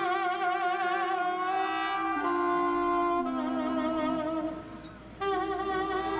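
Live liscio dance-band music led by a reed woodwind playing the melody: a long note with vibrato, then a falling run of notes. The line fades out briefly about five seconds in and starts again on a new note.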